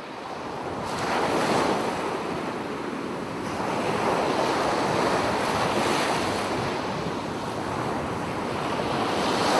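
Steady rushing noise of surf and wind, swelling and easing slowly.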